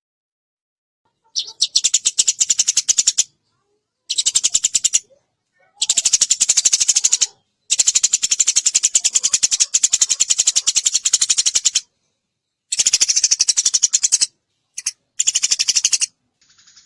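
Eurasian tree sparrow chattering in fast runs of rapid chirps, in several bursts from a fraction of a second to about four seconds long, with short silent gaps between them.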